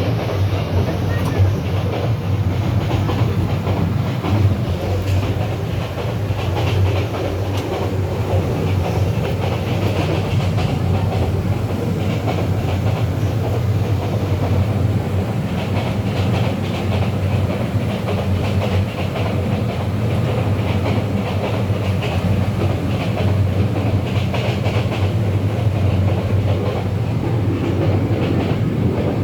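Interior running noise of a South Korean SRT train coach: a steady low rumble of wheels on rail with a lighter hiss above it.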